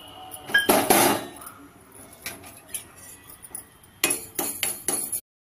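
Fenugreek seeds dry-roasting in a metal kadai, stirred with a spoon. A short rasping scrape of spoon and seeds across the pan comes about a second in, then scattered light clicks and knocks of the spoon on the pan. These grow busier near the end before cutting off suddenly.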